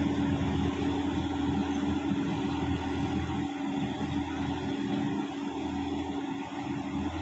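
Tractor diesel engine running steadily under load while it plows a waterlogged field, a constant low hum that slowly fades as the tractor moves away.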